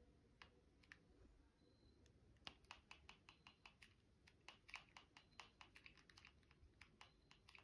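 Faint clicks of the buttons on a handheld LED-strip remote being pressed. Two single presses come first, then a quick irregular run of presses from about two and a half seconds in.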